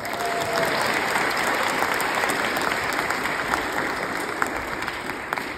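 Guests applauding steadily, tapering off near the end.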